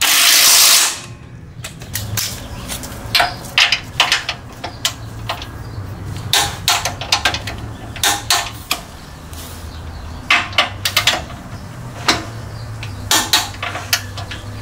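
An impact wrench runs briefly in the first second. Then a torque wrench ratchets in short runs of sharp clicks every second or two as the sway-bar bolt is tightened by hand to 40 ft-lb.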